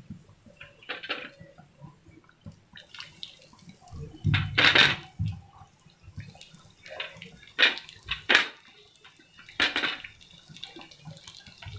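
Oil sizzling and crackling in a frying pan as raw spinach kababs are laid into it for shallow frying, with a few louder spits and pan clatters, the loudest about four to five seconds in.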